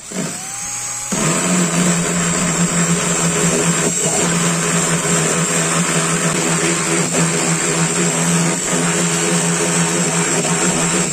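Electric saw motor spinning up with a rising whine, then about a second in biting into wood and cutting steadily.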